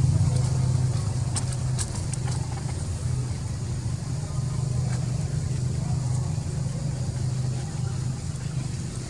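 Steady low hum of a motor running, with a few faint ticks between one and two seconds in.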